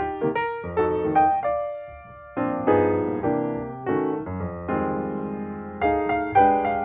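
Background piano music: chords and notes struck every half second or so, each fading before the next.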